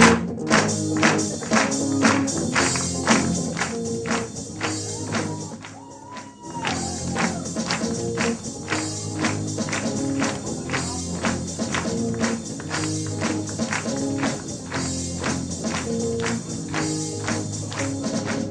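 Instrumental music with a steady beat of sharp, tambourine-like percussion hits over sustained bass and chord notes. The music thins out briefly about six seconds in, then picks up again.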